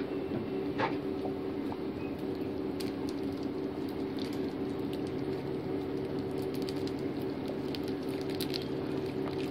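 Tomato sauce simmering in a pot while a silicone spatula stirs and scrapes through it, with scattered soft ticks and pops. A steady low hum runs underneath.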